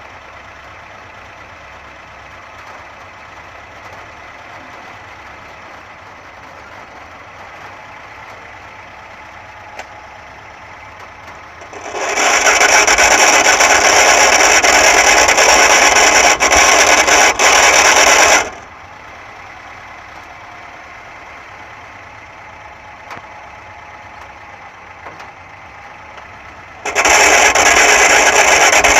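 Lada VAZ-2107 running with a slight hum from its gearbox, a steady drone. Twice a much louder harsh rasping noise swamps it for several seconds: about twelve seconds in and again near the end.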